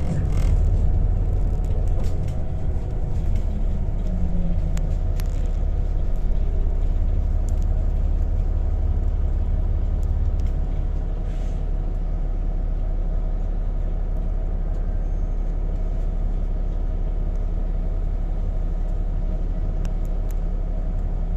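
Scania Citywide city bus engine running with a steady low rumble. The engine note rises and falls briefly in the first few seconds. A few light clicks and a short hiss come about eleven seconds in.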